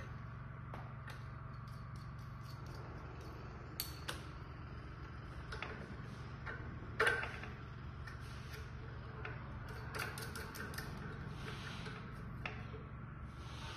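Scattered small clicks and rattles of hands fitting the print head and cable onto a mini printer's stand above a small conveyor, with one sharper click about seven seconds in and a cluster of quick clicks near the end, over a steady low hum.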